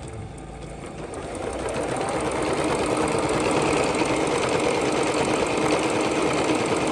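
Jaguar CD-2203MP electronic sewing machine sewing a decorative stitch. It speeds up over the first two seconds or so, then runs fast and steady.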